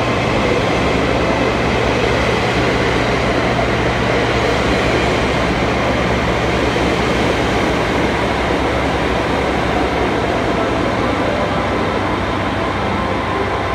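JR 521 series electric multiple units moving along the station platforms: a loud, steady rumble of wheels and traction equipment with a low hum underneath.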